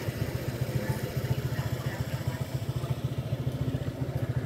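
A small engine idling: a steady, fast low throb.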